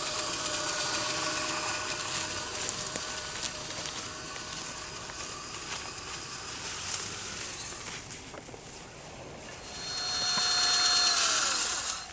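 Cordless drill spinning an aluminum canister with a pheasant inside, a steady motor whine with hiss. Near the end it gets louder, then the pitch falls as the drill stops.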